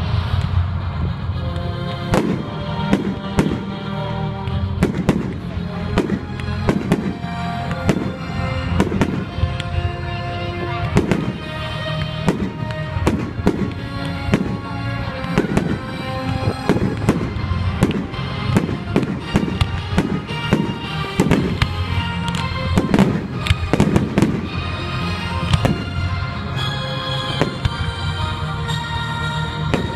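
Fireworks display finale: shells and rockets going off in quick succession, many sharp bangs, several a second at the busiest stretch about three quarters of the way through. Music plays beneath the bangs throughout.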